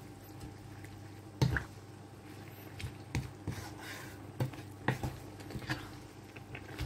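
Wooden spatula stirring greens and pork in hot curry broth in a pan: wet squelching and sloshing, with irregular knocks of the spatula against the pan, the sharpest about a second and a half in.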